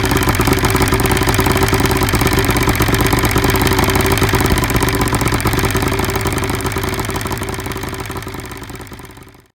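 1975 Evinrude 70 hp two-stroke outboard motor running steadily at idle, fading away over the last few seconds.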